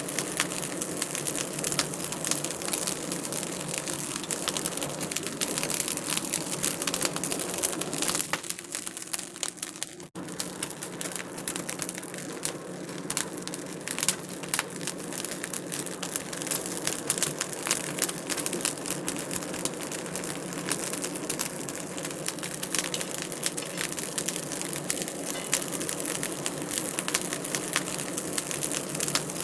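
Wood fire crackling in a fireplace: a dense stream of small pops and snaps over a steady hiss. The sound sinks briefly and cuts back in sharply about ten seconds in.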